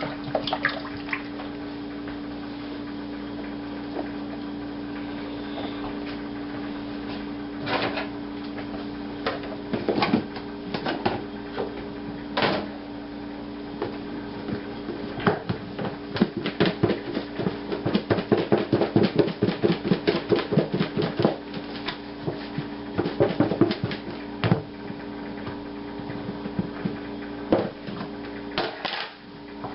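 Chicken pieces being shaken in flour inside a plastic container. Scattered knocks and clicks as the container is handled, then a run of quick rhythmic rattling knocks about two-thirds of the way in, over a steady hum.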